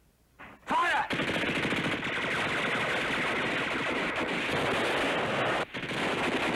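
Sustained rapid automatic-weapon gunfire, a dense unbroken crackle of shots that starts suddenly about a second in, with a brief whine near its start.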